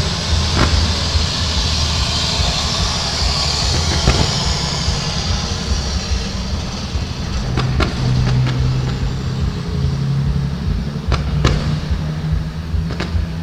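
Fireworks going off: a hissing rush over the first few seconds, then single sharp bangs at irregular intervals, about eight in all, over a steady low drone.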